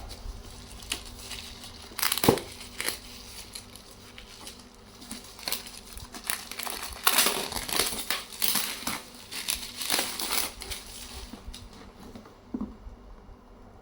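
Packaging handled during an unboxing: irregular crinkling and rustling of plastic wrap and wrapping, with a sharp knock about two seconds in and a busy stretch of crinkling past the middle.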